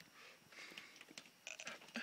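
Near silence: room tone with a few faint clicks and rustles in the second half.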